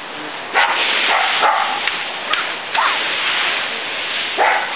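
Dry fallen leaves rustling and crunching as they are raked into a pile, with a few short high-pitched calls over the rustle.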